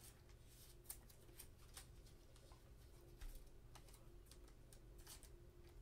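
Faint, scattered light clicks and ticks of trading cards and clear plastic sleeves being handled and shuffled, over a low room hum.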